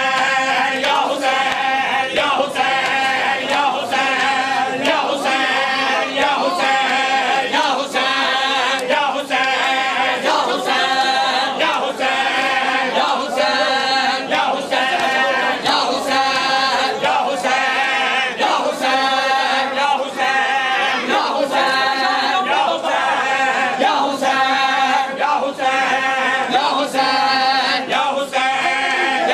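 A crowd of men chanting a mourning nauha in unison, with the steady rhythmic slaps of hands beating on bare chests (matam) keeping the beat.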